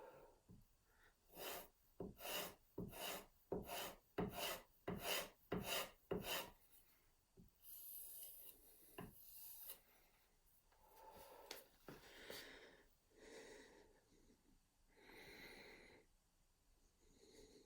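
Sharp hand plane taking thin shavings off oak: a quick run of about nine short strokes, then softer, slower strokes.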